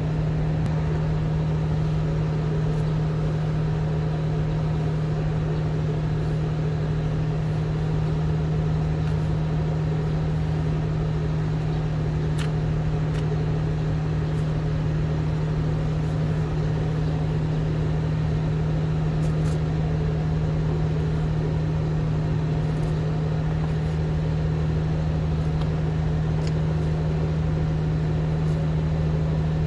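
A steady low motor hum that holds one pitch and level without change.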